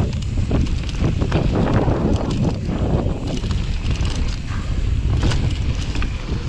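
Mountain bike riding fast over a dirt trail strewn with dry leaves, with wind buffeting the action camera's microphone. The tyres rumble over the ground and the bike clatters and knocks repeatedly over bumps.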